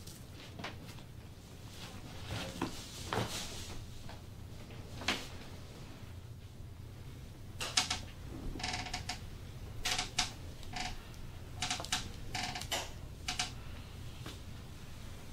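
A padded treatment table creaking and squeaking in short clusters as the patient's body shifts under a back massage, with scattered soft clicks and rubbing.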